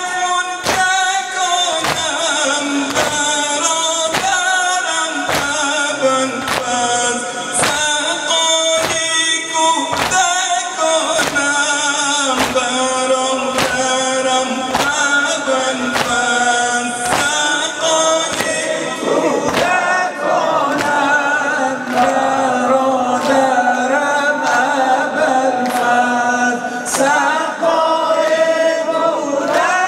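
A male eulogist sings a Shia Muharram lament (noha) into a microphone. A congregation joins in and beats their chests in a steady rhythm, about one beat every three-quarters of a second. The beats grow fainter and sparser about two-thirds of the way through.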